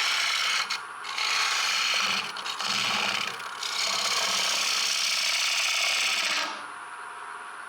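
Wood lathe turning a green sycamore bowl, with a tool rasping against the spinning wood in several passes separated by brief pauses. The rasping stops about six and a half seconds in, leaving a quieter steady running sound.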